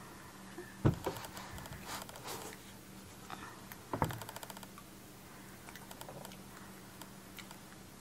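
A flexible silicone mold being peeled and stretched off a cured epoxy resin candle holder: scattered light clicks and taps of handling. There are two sharper knocks, about a second in and near the middle, the second followed by a quick run of fading ticks.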